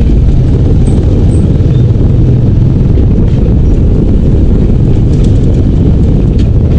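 Small motorcycle running at a steady, easy pace, a loud, even low rumble with no revving up or down.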